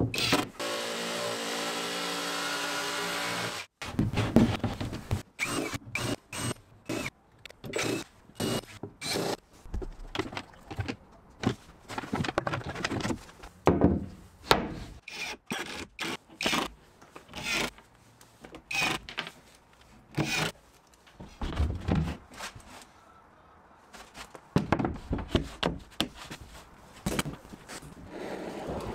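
A cordless drill runs steadily for about four seconds. It is followed by a long series of short, sharp knocks and clatters of plywood and hand tools being handled.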